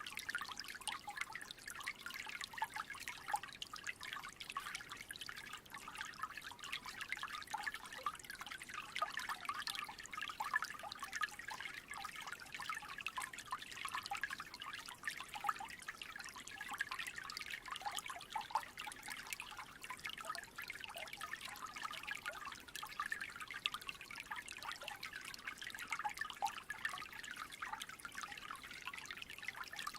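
Small creek trickling steadily: a constant, busy patter of small splashes.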